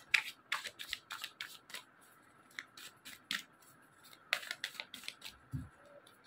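A deck of tarot cards shuffled by hand: a run of quick, irregular card clicks, with a soft low thump a little past five seconds in.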